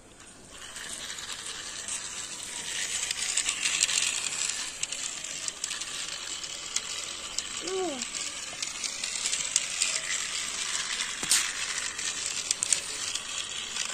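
Toy steam train running around its plastic track: a steady rattling clatter from its small motor and wheels, with many small clicks, starting about half a second in.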